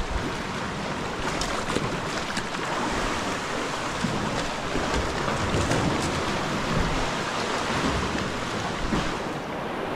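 Sea water sloshing and washing against cliff walls around a sea kayak, with wind rumbling on the microphone.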